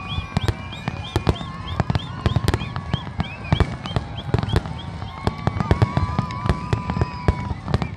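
Large aerial fireworks display: shells bursting in a rapid, unbroken run of bangs and crackle, many a second.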